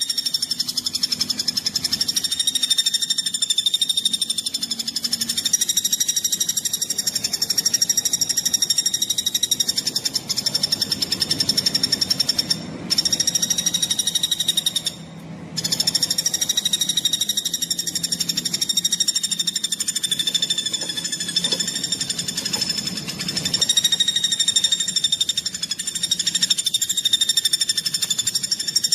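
Songbird singing a fast, tightly packed trill ('speed rapat') at a steady high pitch, almost without a break, with two brief pauses midway.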